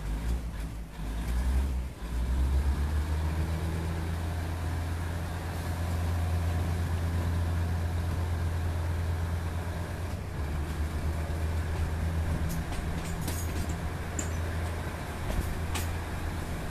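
Diesel railcar running along the track: a steady low engine drone under a haze of wheel and rushing air noise, with several sharp clicks in the last few seconds.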